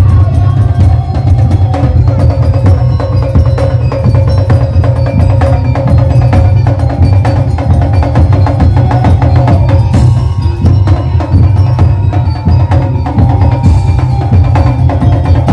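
Musik daul percussion ensemble playing loud, dense drumming with heavy bass drums and wood-block-like hits, under a sustained melody line.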